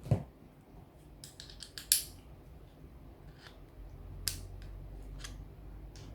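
Scattered small, sharp metallic clicks and taps from a screwdriver working the handle screw of a spinning reel, being tightened, with a quick cluster of clicks about a second or two in.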